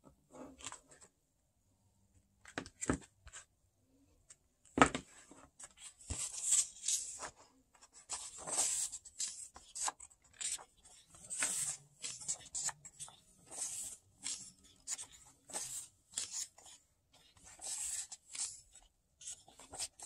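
Paper rustling and crinkling as a paperback booklet is opened and its pages are handled and turned, in an irregular run of soft swishes. One sharp knock about five seconds in is the loudest sound.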